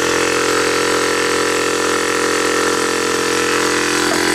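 SCA Outback Devil 12-volt direct-drive piston air compressor running with a steady, even hum as it pumps up a 50-litre air tank.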